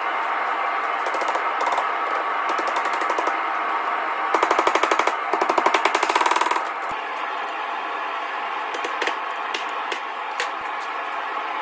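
Red-hot coil spring steel being worked on an anvil: a fast metallic rattle of rapid strikes for about two seconds in the middle, then scattered single clinks of metal on metal, over a steady rushing noise.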